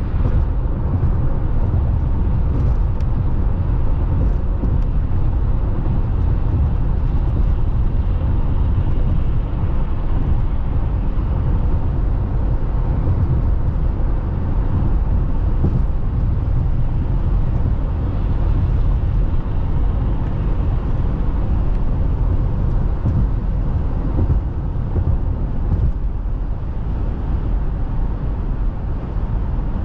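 Steady low road rumble of a vehicle moving at speed: tyre and engine noise with no distinct events, even throughout.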